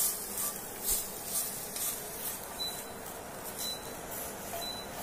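Silicone spatula scraping toasted grated coconut across a white-coated pan and into a bowl of dried chillies and spices: a series of soft swishing scrapes, most of them in the first two seconds.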